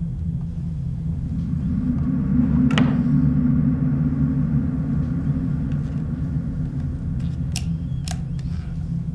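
Low rumbling drone of a horror-film soundtrack, swelling in the middle and then easing. A few sharp clicks cut across it, one near three seconds in and two close together near the end.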